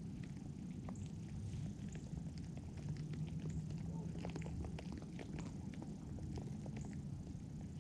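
A cat purring in a low, steady rumble, with many small irregular crunching clicks of chewing over it.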